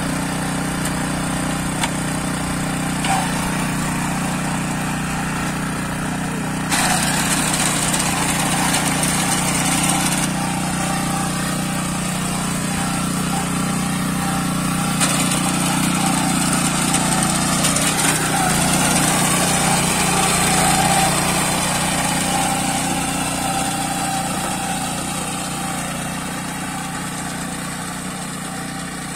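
Small engine of a walk-behind wheat reaper running steadily as it cuts. It grows louder for a few seconds at a time and fades near the end as the machine moves off along the crop.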